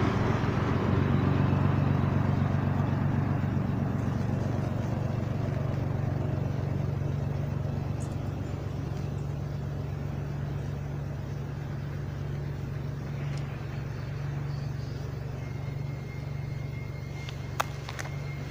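Low, steady engine hum from a motor vehicle, slowly fading. A few faint clicks near the end.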